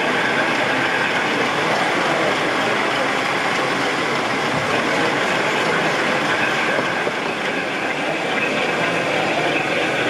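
Steady diesel engine sound from sound-fitted model diesel locomotives running on a model railway layout, played through their small onboard speakers.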